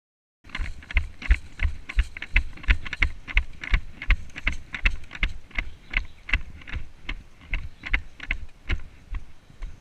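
Quick rhythmic thuds, about three a second, each a deep thump with a sharper click on top. They start about half a second in and grow a little weaker near the end.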